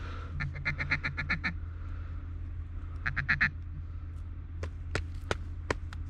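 Duck quacking in quick runs: about nine short quacks in just over a second, then a shorter run of five about three seconds in. A few sharp clicks follow near the end.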